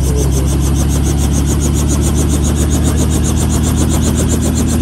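Small two-bladed helicopter running on the ground with its main rotor turning: a steady engine hum under a rapid, even blade chop of about ten beats a second.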